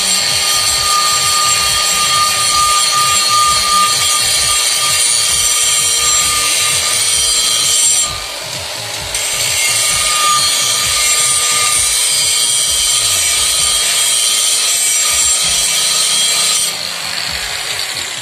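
Electric angle grinder running with a steady high whine as it grinds the inside of a brake drum. The sound drops briefly about eight seconds in. Near the end the motor is switched off and winds down, its pitch falling.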